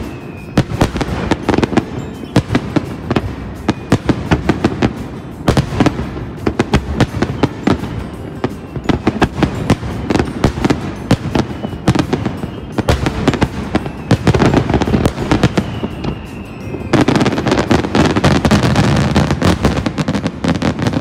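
Aerial fireworks display: a rapid barrage of shell bursts and crackling stars going off without a break, growing denser and louder near the end.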